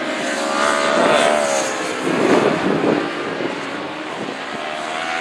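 Racing superbike engines passing at speed, their engine note gliding up and down as the bikes go by.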